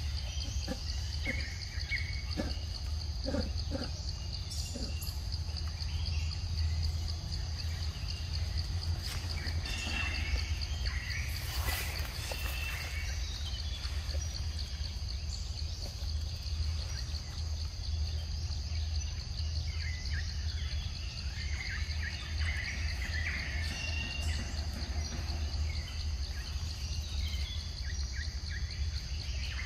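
Steady high, rapidly pulsing insect chorus in forest, with scattered short bird calls now and then and a constant low rumble underneath.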